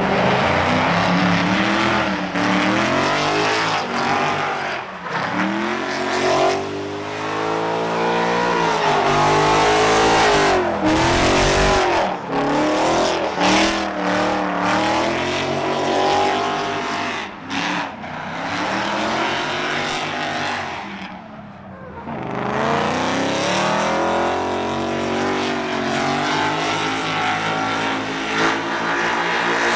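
Drift car's engine revving hard, rising and falling again and again as the car is pushed sideways, with tire squeal underneath. The engine drops off briefly about two-thirds of the way through, then climbs again.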